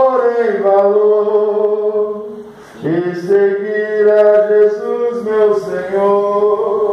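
A man singing a Portuguese hymn into a microphone, drawing out long held notes. He breaks briefly about two and a half seconds in, then starts a new phrase.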